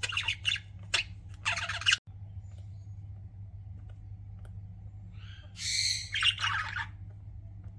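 Pet budgerigars chirping in quick bursts for about the first two seconds, then a lull and another short burst of chirps about five and a half seconds in, over a steady low hum.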